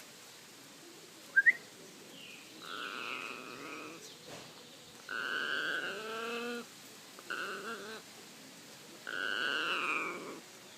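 Red macaw making growling, grumbling calls in four drawn-out bouts, each with a falling pitch, after a brief sharp squeak about a second and a half in.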